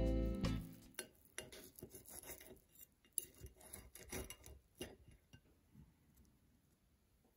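Guitar music fades out in the first second, then a table knife and fork cut through a soft baked broccoli patty on a ceramic plate: faint scrapes and light clinks of metal on the plate, spread over a few seconds.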